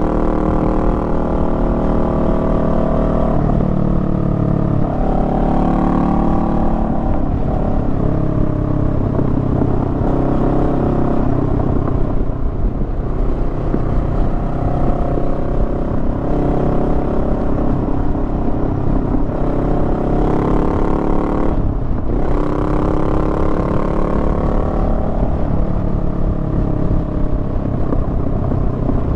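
Honda Rebel 500's parallel-twin engine running on the move, its pitch rising and falling with the throttle through the bends. About two-thirds of the way through the sound briefly drops out, then the pitch climbs again as the bike pulls away.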